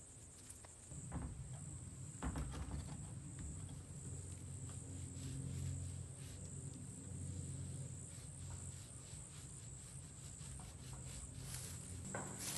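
Insects trilling steadily in woodland, with a low hum coming in about a second in and scattered light clicks and taps.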